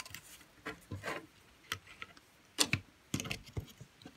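Scattered small clicks and rattles of plastic parts and wires being handled as a switch and its wiring are pulled by hand out of an opened plastic power strip housing. A sharper knock comes about two and a half seconds in, followed by a quick cluster of clicks.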